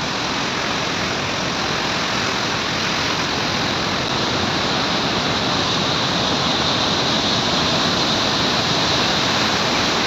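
Swollen waterfall in flood, muddy white water pouring over rocks in a steady, unbroken rush.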